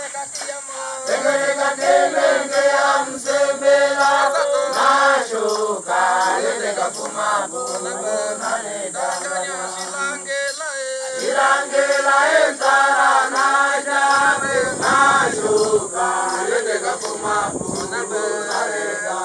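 Hadza (Hadzabe) men and women singing together in a group chant for a traditional dance. The singing breaks off briefly about ten seconds in.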